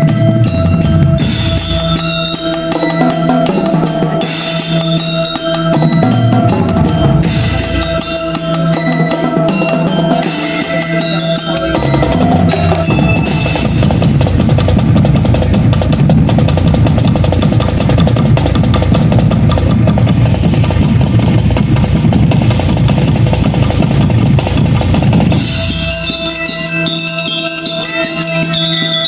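Marching band playing: drums over held notes, then a long, dense drum roll from about twelve seconds in that stops a few seconds before the end, where bright glockenspiel-like bell notes take over.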